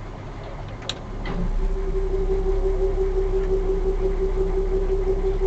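Small river ferry's engine picking up: about a second and a half in, a low rumble and a steady whine rise and then hold, after a brief click.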